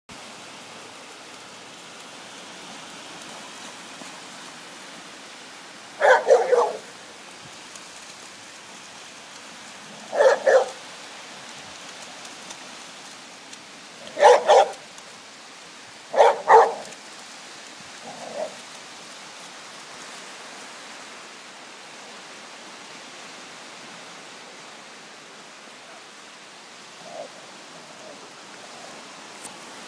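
A dog barking in four short bursts of two or three barks each, spread over the first twenty seconds, then one fainter bark, over a steady background hiss.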